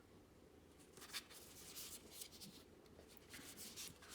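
Faint, soft rustling of matte tarot cards being handled and slid against one another, in several short scrapes.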